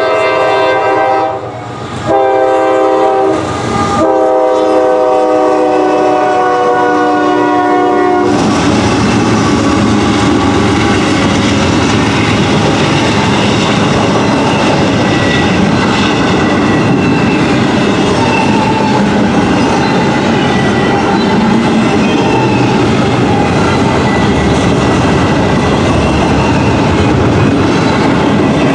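Air horn of a Norfolk Southern GE AC44C6M locomotive sounding a chord in long blasts with two brief breaks, a little lower in pitch after each break. About eight seconds in the horn stops abruptly, and the steady rumble and clickety-clack of the locomotive and intermodal container cars passing close by take over.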